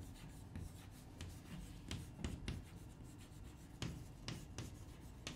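Chalk writing on a chalkboard: faint, irregular taps and short scratches as each letter is stroked out.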